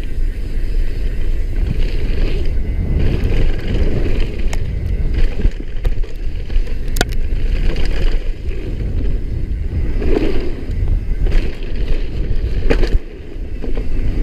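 Downhill mountain bike running fast down a gravel trail: a steady rush of wind on the microphone and tyre rumble, broken by sharp clicks and knocks from the bike, one standing out about halfway through and another near the end.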